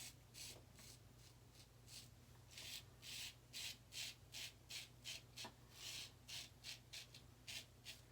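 Short, quiet scraping strokes of an Autostrop safety razor's blade cutting stubble through lather, a couple to three strokes a second in an uneven run.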